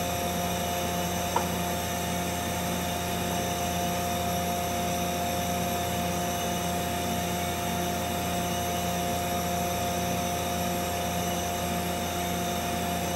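Mazak Integrex 300-IIIS CNC lathe running under power: a steady hum with a few fixed whining tones, and one light click about a second and a half in.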